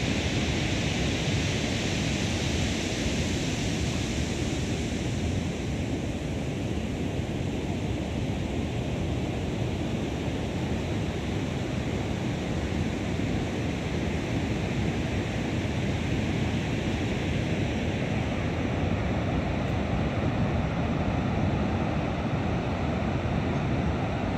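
Steady rush of heavy ocean surf breaking along the beach, an even roar of waves with no let-up.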